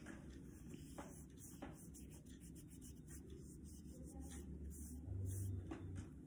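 Paintbrush rubbing poster colour across paper in faint scratchy strokes, with a brief low rumble about five seconds in.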